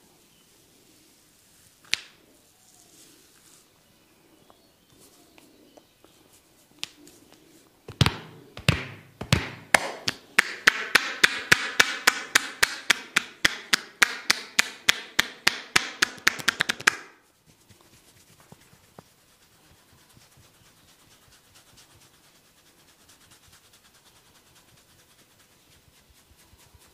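A barber's hands percussing in a head massage: a fast run of sharp slaps, about four a second, starting about eight seconds in and stopping abruptly some nine seconds later. Earlier, one sharp click and faint rubbing.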